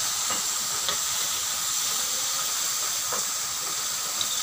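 Battered squid deep-frying in hot oil in a metal wok: a steady sizzling hiss, with a few light clicks as metal tongs touch the wok.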